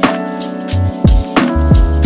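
Background music with a steady beat: kick drum and percussion over sustained pitched instruments.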